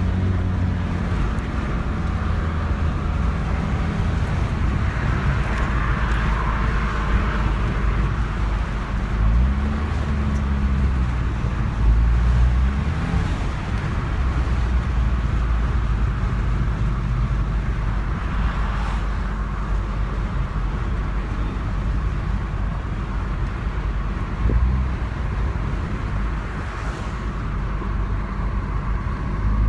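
Car driving at highway speed, heard from inside the cabin: a steady rumble of engine and road noise, with the engine note briefly rising and falling a few times about a third of the way in.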